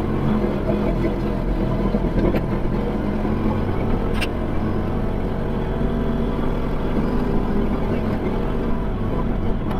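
Kubota L3560 tractor's four-cylinder diesel engine running steadily, with a short sharp click about four seconds in.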